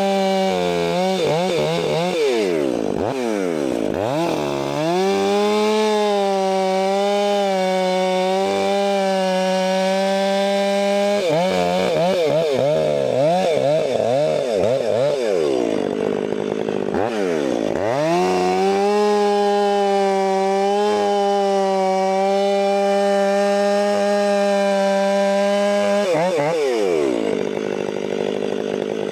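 Two-stroke chainsaw running at high revs, likely cutting firewood. About four times the engine pitch drops sharply and climbs back up as the throttle or load changes.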